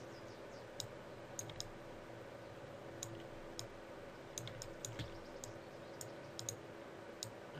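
Computer mouse buttons clicking, short sharp clicks at an irregular pace, about a dozen in all, over a steady low electrical hum.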